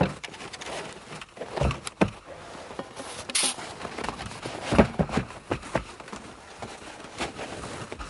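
Irregular knocks and thumps of cushions and a tabletop being handled and set in place as a pop-up camper's dinette is made into a bed, with a brief hiss about three and a half seconds in.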